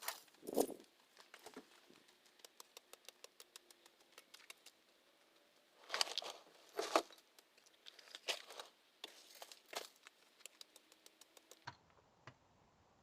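Dry weeds and plant debris crinkling and tearing as they are pulled up and handled, in several short bursts with a run of faint light ticks between.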